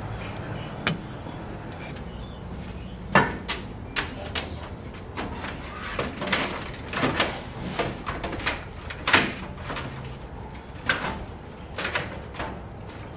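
Hands reassembling parts in a Ford Ranger's engine bay: a sharp click about a second in as the air temp sensor plug is pushed onto the intercooler, then a run of irregular knocks and clunks of parts being handled and fitted.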